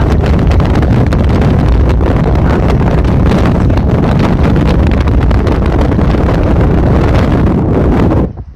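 Strong storm wind buffeting the microphone: a loud, steady rumbling rush that drops away suddenly near the end.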